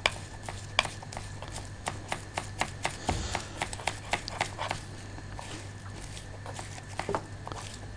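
Kitchen knife mincing garlic on a wooden cutting board: quick knocks of the blade on the board, about four a second, pausing for a couple of seconds past the middle and starting again near the end. A steady low hum runs underneath.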